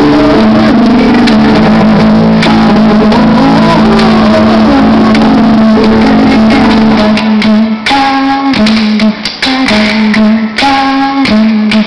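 Live music with plucked guitar, recorded loud. Held notes give way about seven seconds in to shorter, separated repeated notes.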